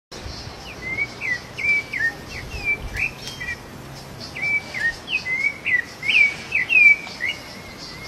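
Rufous-bellied thrush singing: a string of short, clear, slurred whistled notes in two phrases, with a brief pause about halfway through.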